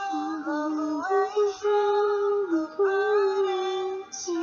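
A woman singing a slow melody in long held notes that step up and down, with music.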